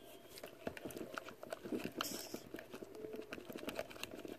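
A wooden stick stirring a thick, foamy slime base of glue, shaving cream, oil and water in a glass bowl, making many small, irregular sticky clicks and smacks.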